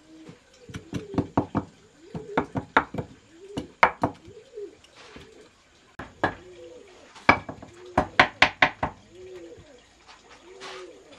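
A small wooden block knocking on freshly laid ceramic tiles in quick runs of sharp taps, bedding the tiles into the mortar on a cinder-block stove top. A bird repeats a short low call in the background between the taps.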